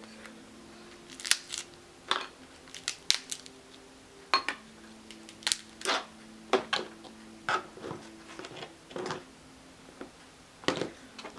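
Steamed crab leg shells being cracked and cut open: a string of sharp, irregular cracks and snaps.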